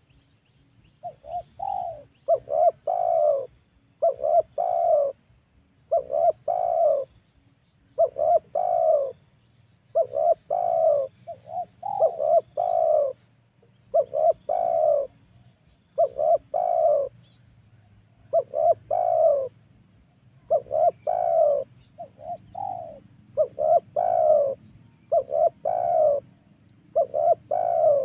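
Spotted dove (tekukur) cooing over and over, about one phrase every two seconds, each a couple of short notes run into a longer coo.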